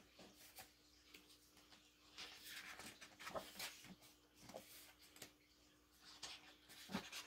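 Faint rustle of glossy photobook pages being turned and pressed flat by hand, with a few soft taps, over a low steady hum.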